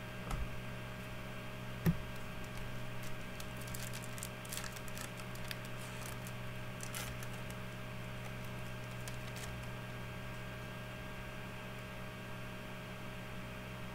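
Trading cards and a foil pack being handled: two soft knocks near the start, then a run of light clicks and rustles for several seconds, over a steady mains hum.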